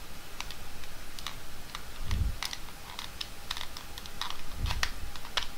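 A pry tool working along the seam of a Samsung TV remote's snap-together plastic case, making a run of small, irregular clicks and scrapes as it is slid down the edge to force a gap. Two dull low bumps come about two seconds in and again near the end.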